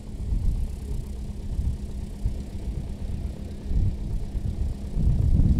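Light aircraft's piston engine idling with its propeller turning, a steady low drone that swells louder about five seconds in.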